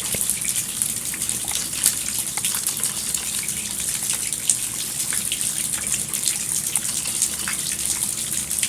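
Heavy rain pouring down steadily, a dense hiss with many individual drops ticking on surfaces close by.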